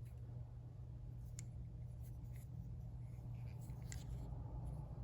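Faint rubbing and a few light, scattered clicks of a disassembled Jennings J-22 pistol being handled, over a steady low hum.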